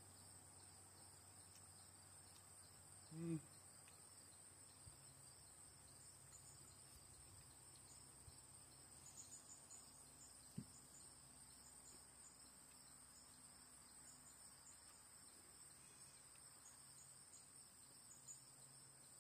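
Near silence with a faint, steady, high-pitched trill of crickets. A short hum of a voice comes about three seconds in, and a single light knock near the middle.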